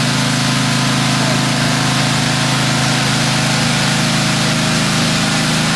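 An engine running steadily at a constant speed, with an even hiss over it.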